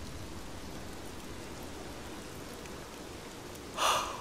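Steady heavy rain, an even hiss, with a short sharp breath about four seconds in.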